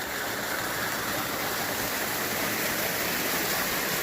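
Creek water rushing steadily over rocks: an even, unbroken hiss.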